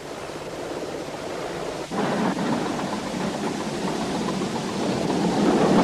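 Heavy construction machinery running as a steady rushing noise with no clear tone. It jumps louder about two seconds in and keeps slowly building.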